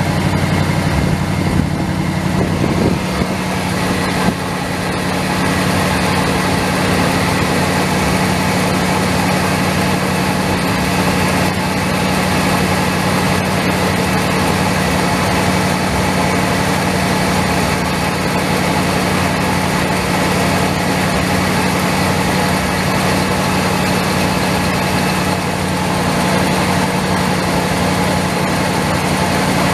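1981 Ford F700's 6.1-litre gas V8 idling. It is a little louder for the first four seconds or so, then settles into an even, steady idle.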